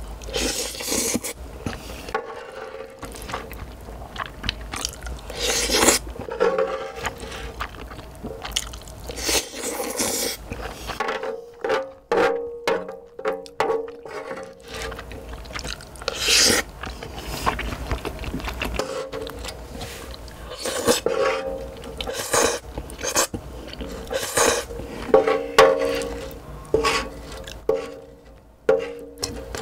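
Wooden spoon scraping the last noodles across a large griddle pan, with close-up chewing between scoops, over light background music.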